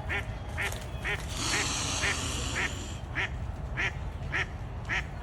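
Ducks quacking in a steady run of short calls, about two a second, with a brief rush of hissing noise about a second in.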